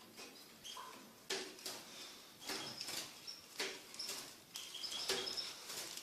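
Fischer's lovebirds making short high chirps among irregular clicks and rustles.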